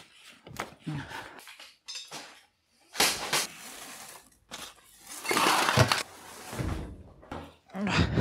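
A rubber air hose being wrestled out of a tangle and dragged over a concrete floor, its metal fitting clattering and scraping along. Scattered knocks come first, then stretches of rough scraping that start suddenly about three seconds in and again around five seconds.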